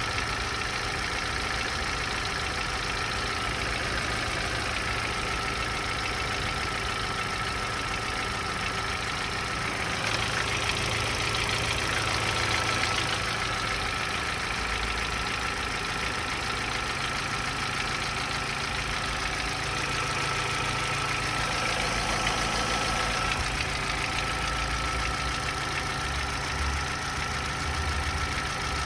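Opel Z14XEP 1.4-litre four-cylinder petrol engine idling steadily with a knock, the fault being shown. A thin steady high tone runs above the engine noise.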